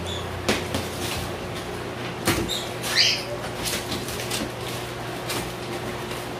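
Cardboard box being opened: a knife cutting through packing tape, then the flaps pulled apart with irregular scrapes and crackles of cardboard. The loudest crackle comes about three seconds in. A steady low hum runs underneath.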